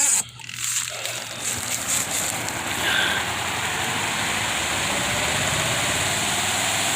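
Portable washing machine's spin-dryer motor starting up, a few knocks in the first second, then a steady whirring spin that builds, with a faint whine slowly rising in pitch as the drum gains speed.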